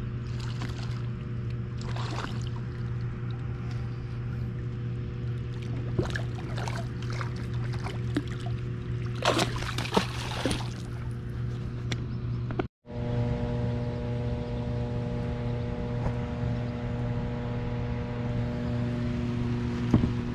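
A bass striking a live bluegill at the surface, a burst of heavy splashing about nine to ten seconds in, with smaller splashes a few seconds earlier. A steady low hum runs underneath.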